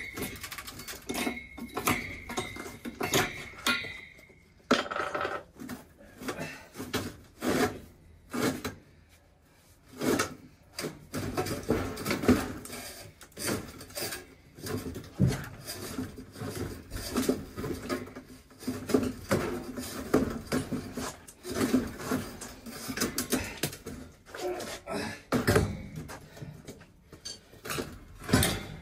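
Irregular metallic clanks, knocks and scrapes as an old boiler's cast-iron sectional heat exchanger is worked apart by hand. A faint ringing of struck metal fades out about four seconds in, and there is a short lull about a third of the way through.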